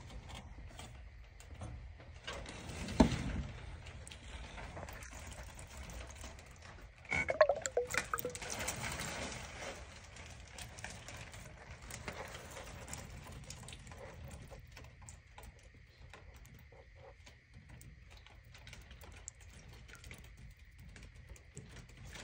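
Hand-held movement and handling noise in an attic over a low steady hum. A single sharp knock comes about three seconds in, then a couple of seconds of scraping and rustling from about seven seconds in.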